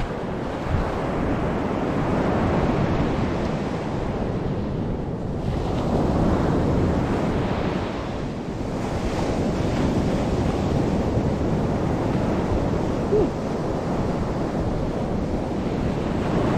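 Ocean surf breaking and washing up a sandy beach, swelling and easing every few seconds, with wind buffeting the microphone.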